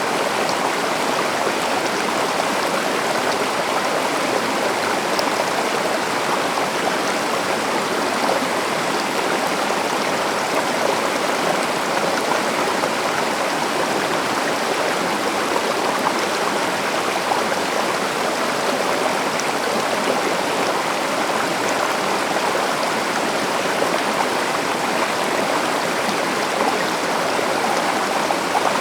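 A river or stream running over rocks: a steady, even rushing and babbling of water.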